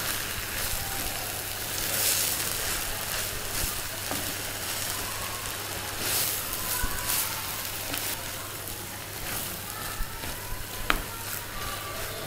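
Cauliflower and green peas sizzling in oil in a clay pot while a spatula stirs and scrapes through them, mixing in the ground spices. There are a few light clicks of the spatula near the end.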